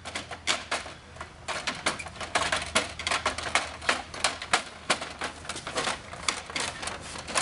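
HP LaserJet 4250 duplex unit being slid and worked into its slot at the back of the printer: a rapid, irregular run of plastic clicks, knocks and rattles.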